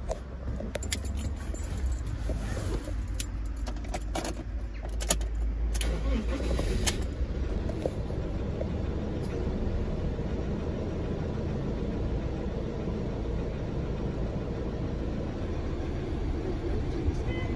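Keys jangling and clicking over the first several seconds, then the Fiat Ducato's 2.3 MultiJet II four-cylinder turbodiesel idling steadily.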